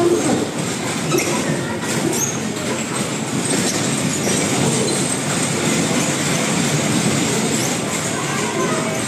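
Electric bumper cars driving around the rink: a steady rolling noise of their motors and wheels on the floor.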